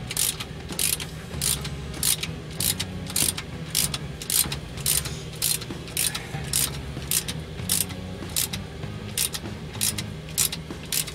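Hand ratchet wrench clicking in short bursts about twice a second as it is worked back and forth, snugging up the nuts on an exhaust clamp at the turbo-to-exhaust-brake pipe. A low steady hum runs underneath.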